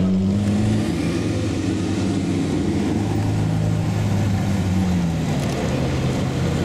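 Ferrari 458 Speciale Aperta's naturally aspirated 4.5-litre V8 at low speed, rising briefly in pitch at the start as the car pulls away, then running steadily with a short drop in pitch about five seconds in.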